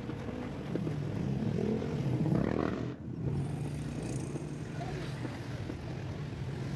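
Motor vehicle engine running nearby with street traffic, a steady low hum that swells briefly about two and a half seconds in.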